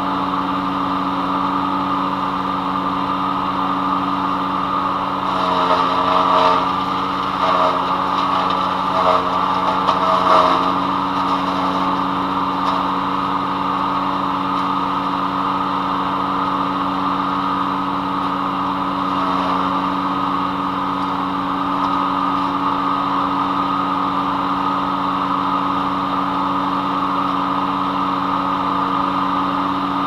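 Small gas-engined, belt-driven PowerKing PK0915 wood chipper running steadily at speed. Between about five and eleven seconds in it gets louder and uneven as branches and palm fronds go through the blades, with a brief spell again near the twenty-second mark.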